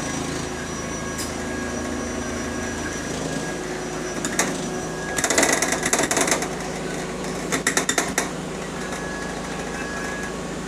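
Bus engine running, heard from inside the bus, its drone shifting in pitch about three and a half seconds in. There are two bursts of noisy clatter, about a second long each, a little after the middle.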